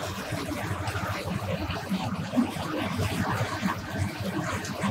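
Meat stew simmering and sizzling in a frying pan, with a wooden spoon scraping and knocking through it as it is stirred.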